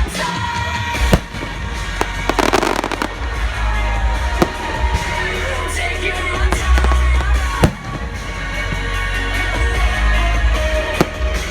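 Fireworks bursting over loud music with a heavy bass line: single sharp booms every few seconds, and a dense crackling burst about two and a half seconds in.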